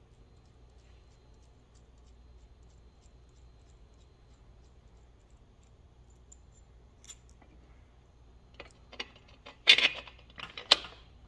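Hand-assembled hardware: a steel bolt, washers and nuts clicking and clinking in the fingers, then a few sharp metal clinks against the rack's steel frame, two of them loud, about ten seconds in as the bolt goes through the rail.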